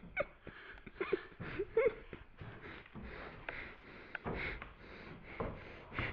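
A person breathing hard and sniffing in short, repeated bursts, with a few brief squeaky sounds in the first two seconds.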